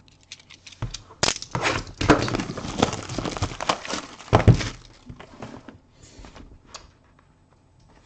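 Trading-card packaging handled and torn open by hand: crackling and tearing with a few knocks. It is busiest from about one to five seconds in, then thins to faint handling.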